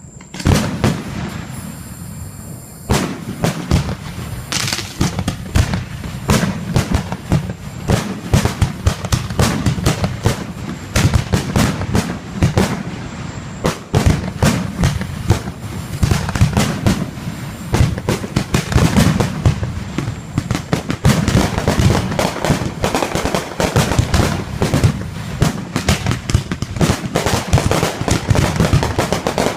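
Fireworks display going off in a dense barrage: many sharp bangs in quick succession, one after another without a break.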